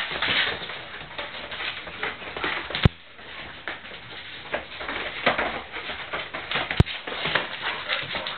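Mastiff puppies running and scrabbling on a hard kitchen floor: a busy, irregular clatter of claws and paws skidding and scuffing. Two sharp clicks stand out, about three seconds in and again near the seventh second.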